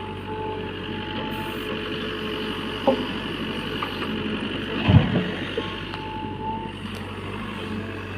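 JCB backhoe loader's diesel engine running steadily while it works, with a faint high whine that comes and goes. Three sharp metallic clanks sound about three, five and near nine seconds in; the one at five seconds is the loudest.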